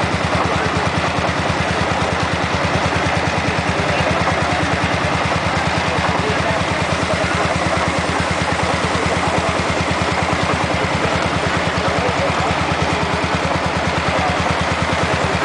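Tractor engine running steadily under load, driving a Breloux threshing machine by flat belt, with the thresher's rumble and rattle mixed in. A fast even engine beat sits low under a dense, steady mechanical din.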